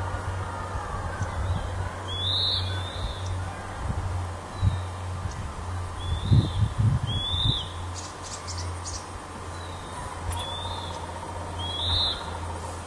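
A bird calling: a short, high, arched call, each time a faint one followed by a louder one, repeated three times about four seconds apart. A steady low hum runs underneath, with a few low bumps on the microphone around the middle.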